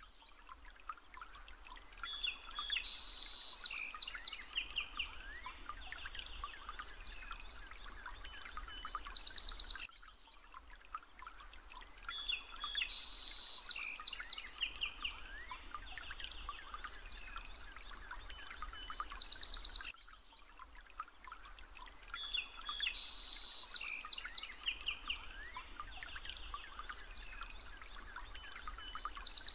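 Recorded birdsong ambience: many high chirps and trills from several birds, in a ten-second clip looped three times over.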